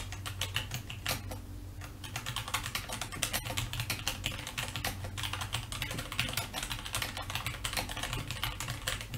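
Typing on a computer keyboard: a fast, irregular run of key clicks with a short pause about a second and a half in, over a low steady hum.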